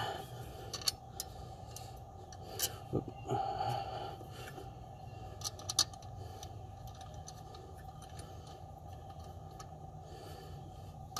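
Faint metal clicks and light scrapes of a smog pump pulley being turned and fitted by hand onto the pump, with a few sharper clicks in the first six seconds over a steady low background hum.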